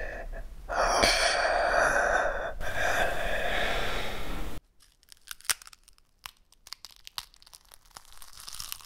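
A loud harsh rasping noise that cuts off suddenly about four and a half seconds in, followed by faint scattered crackling and crunching clicks.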